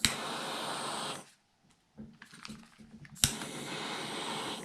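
A torch lighter clicks alight twice, and each time its flame hisses steadily for a second or so. It is heating heat-shrink tubing over a freshly soldered battery-wire connector.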